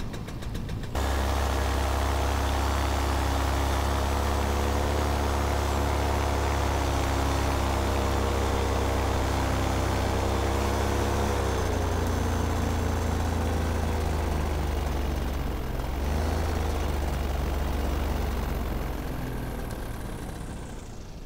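Paramotor engine running steadily in flight, cutting in about a second in, its pitch dipping about halfway through and again a few seconds later, then growing quieter near the end.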